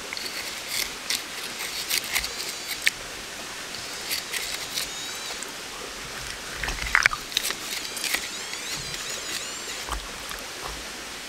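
Small stones and pebbles clicking and knocking under shallow creek water as a pinpointer probe and fingers dig through the gravel, over the steady rush of the stream, with a few dull thuds. Twice there are short runs of wavering high chirps.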